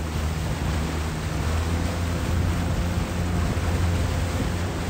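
Motorboat engine running steadily at speed, a constant low hum under the rush of wind and water.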